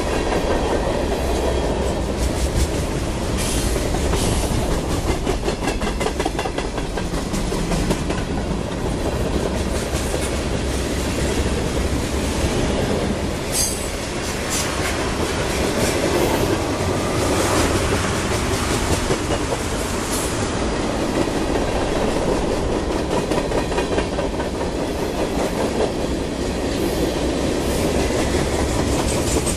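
Freight cars of a mixed train (hoppers, tank cars and boxcars) rolling past at speed: a steady rumble with the rhythmic clickety-clack of steel wheels over rail joints.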